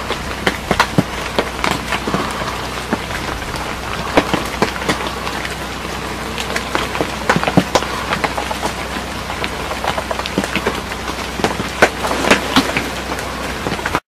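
Rain pattering: dense, irregular drops and ticks over a steady hiss.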